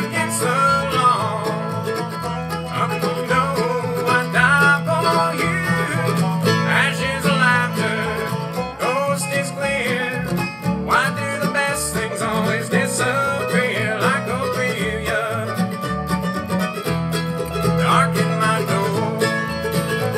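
Bluegrass band playing live: banjo, mandolin, acoustic guitar and upright bass, with the bass keeping a steady line under busy plucked picking.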